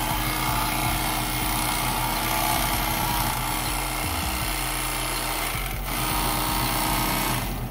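Black+Decker electric carving knife running steadily, cutting fish. It drops out briefly about six seconds in and stops near the end.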